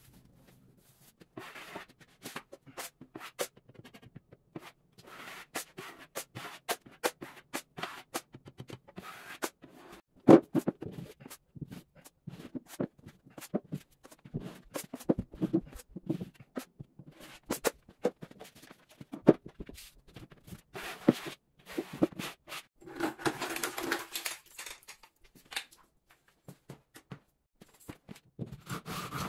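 Drywall taping tools scraping and tapping wet joint compound along an inside corner finished with Strait-Flex corner tape: an irregular run of sharp clicks and short scrapes, with a longer stretch of scraping late on.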